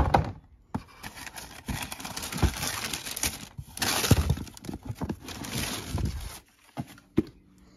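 Tissue paper rustling and crinkling as a hand rummages in a cardboard shoebox, with a sharp knock of the box at the start and another near the end.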